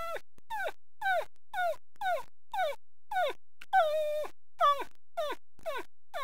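A man imitating a sleeping puppy's whimpers with his voice: about eleven short high whines, roughly two a second, each sliding down in pitch, one a little longer near the middle.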